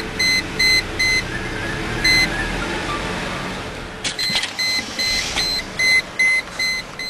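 Rapid electronic warning beeps, about two to three a second, stop for a few seconds and then start again, over the 1998 Mercedes E320's V6 engine running under throttle. The engine is misfiring on all cylinders and bogging down instead of pulling.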